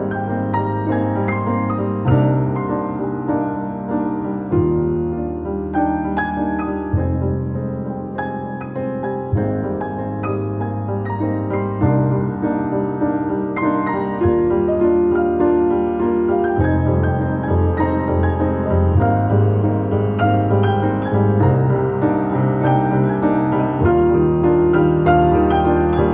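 Grand piano played four-hands, an instrumental passage of chords over deep sustained bass notes that change every two to three seconds.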